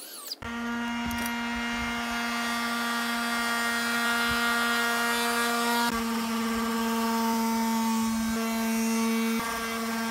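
Cordless drill motor running steadily at full speed, a continuous whine that shifts slightly about six seconds in and again near nine seconds.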